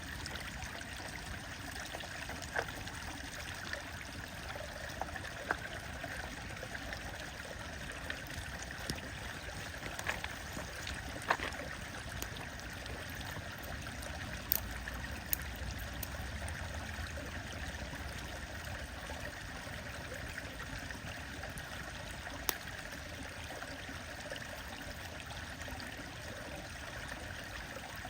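Stream water flowing steadily, with a wood fire crackling over it in occasional sharp pops, about seven or eight across the stretch.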